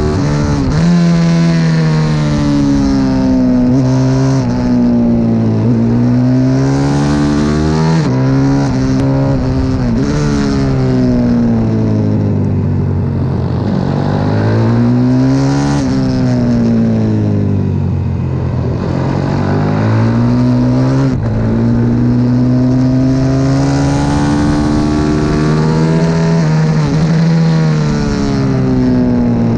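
CW 140 pit bike's single-cylinder engine at racing speed, heard from on board. The revs climb and drop sharply at each upshift, and fall away for a few seconds when it slows and downshifts for corners, several times.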